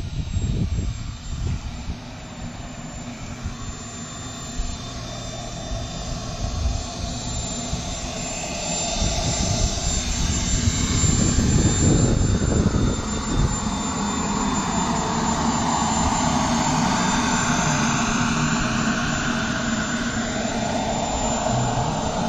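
Small turbine engine of a radio-controlled Elite Aerosports Havoc jet running at low power as the plane taxis in, growing louder about halfway through as it comes close. A whine rises in pitch near the end, and wind buffets the microphone.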